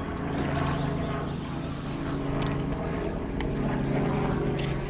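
A boat motor running steadily, a continuous low drone, with a few light clicks about halfway through and near the end.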